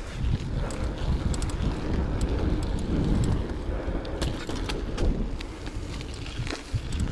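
Wind buffeting the microphone during a ride on a Trek Liquid 30 full-suspension mountain bike, with rolling noise and scattered clicks and rattles from the bike.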